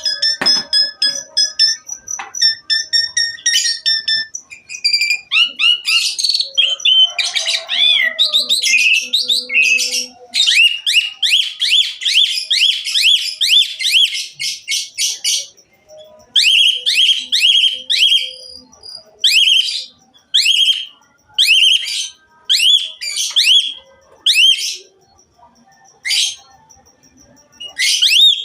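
Asian pied starling (jalak suren) singing a song packed with mimicked phrases. It opens with a varied run of whistled phrases, then a fast string of repeated sweeping notes about four a second, then separate loud whistled notes with short gaps between them.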